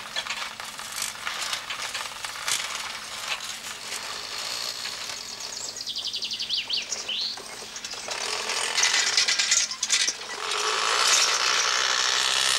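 Bicycles rolling along, their freewheel hubs ticking and frames rattling in a rapid run of fine clicks. The sound grows louder and noisier over the last few seconds.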